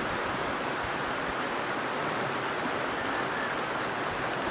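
Shallow creek water running over stones, a steady rush.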